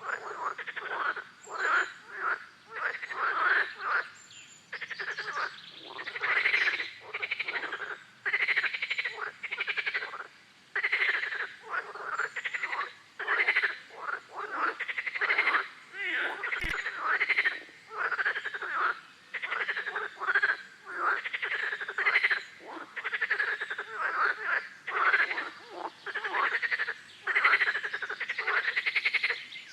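A chorus of frogs croaking, short calls following one another about once a second without a break. There is a single sharp click about halfway through.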